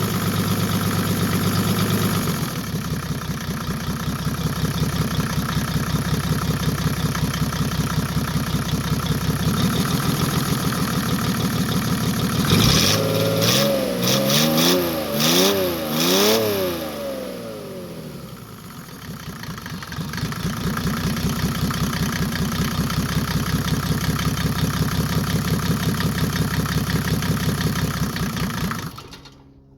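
Mercedes OM603 inline-six diesel engine running on its newly installed injection pump. It idles steadily, is revved up and down several times around the middle, then settles back to idle. The sound cuts off abruptly near the end.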